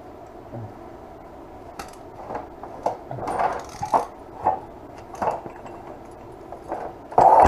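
Irregular clunks and clatters of metal engine parts and hand tools being handled and set down, a dozen or so knocks spread unevenly, with the loudest one near the end.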